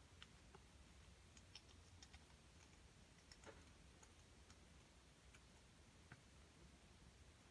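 Near silence: room tone with a low hum and a dozen or so faint, irregular ticks.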